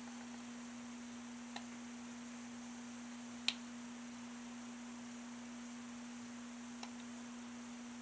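A steady low hum with three separate small clicks, the middle one the sharpest and loudest.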